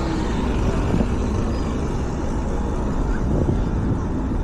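Steady rumble of city road traffic, with no single event standing out.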